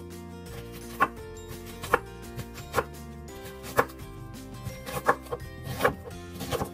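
Kitchen knife slicing a red onion into rings on a wooden cutting board: about seven crisp cuts, each ending in a knock on the board, roughly one a second.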